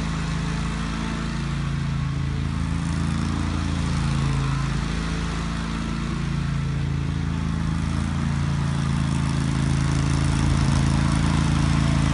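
2007 Grasshopper 120K riding lawn mower's engine running steadily, getting a little louder near the end.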